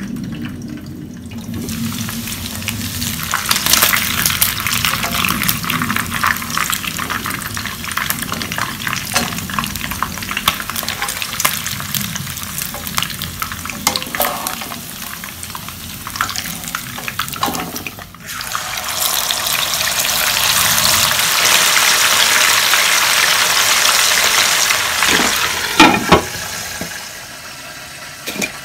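Food frying in hot oil, sizzling with many sharp crackles and pops. The sizzle drops out for a moment about two-thirds of the way in, then comes back as a steadier, louder hiss.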